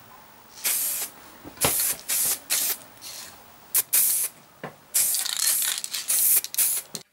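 Aerosol spray-paint can spraying in short hissing bursts, about eight of them, then a longer spray of about two seconds near the end.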